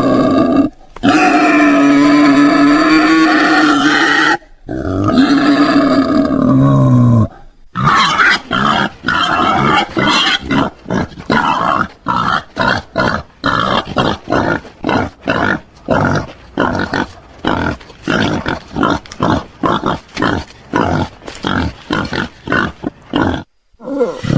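Wild boar vocalising: three long, drawn-out, wavering calls, then about two seconds in from the last of them a rapid series of short grunts, about three a second, that runs on until near the end.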